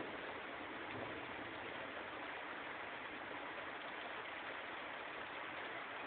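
Steady, even hiss of rain falling during a thunderstorm.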